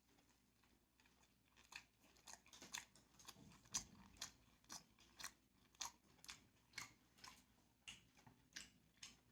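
A person chewing a mouthful of a large stuffed kathi roll, faint, with short wet clicks about twice a second starting a couple of seconds in.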